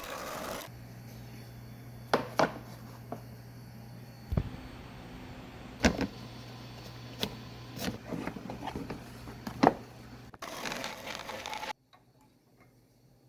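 Wooden pieces knocking and clicking as they are handled and fitted, about eight sharp knocks a second or so apart and one duller thud, over a steady low hum. A brief rushing noise follows near the end.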